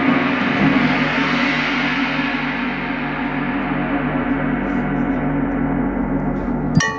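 Marching band show music: a gong crash washing and slowly fading over a held low chord. Sharp, pitched percussion hits break in just before the end.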